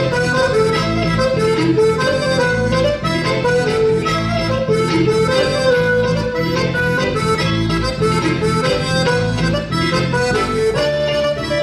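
Breton dance tune led by an accordion, with a steady bass and an even beat underneath.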